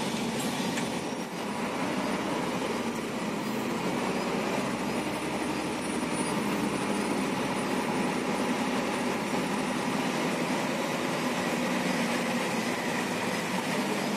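A truck's diesel engine running steadily, with road and cab noise, heard from inside the cab as the truck pulls away and drives slowly along a wet road.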